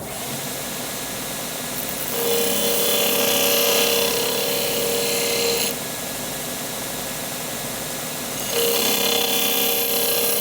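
Electric disc sander switched on and running, with a forged screwdriver tip pressed against the disc twice, about two seconds in and again near the end. Each pass is a louder, brighter grinding rasp over the motor's steady run.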